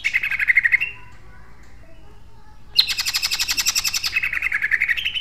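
Caged male cucak ijo (green leafbird) singing its rapid-fire 'tembakan' song in two bursts of fast, harsh repeated notes. A short burst ends under a second in. A longer, denser burst starts about halfway through and ends on a rising sweep.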